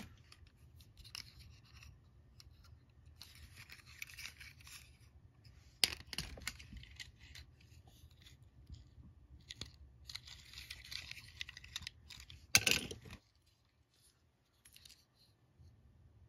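Hands rummaging through a cardboard shipping box of loose die-cast toy cars: intermittent rustling and scraping of cardboard, with two sharp clacks, one about six seconds in and a louder one about twelve seconds in.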